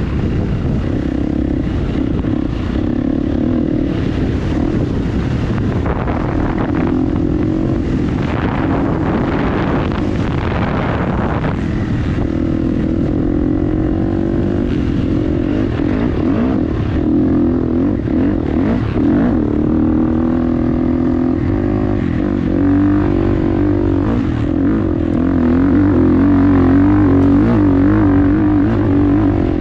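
Dirt bike engine running under way, its revs rising and falling, a little louder near the end.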